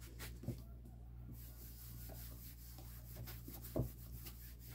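Cloth rubbing back and forth inside a wardrobe drawer, wiping off dust in quick repeated strokes, with two light knocks, one about half a second in and one near the end.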